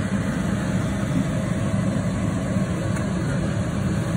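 Kitchen range-hood extractor fan running with a steady low rumble.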